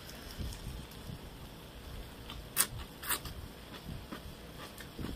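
A person eating: chewing and mouth noises, with two sharp clicks about two and a half and three seconds in.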